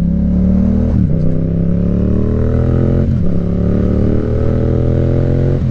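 Yamaha MT-07's parallel-twin engine pulling up through the gears. The pitch climbs steadily, then drops sharply at each upshift: about a second in, about three seconds in, and again at the very end.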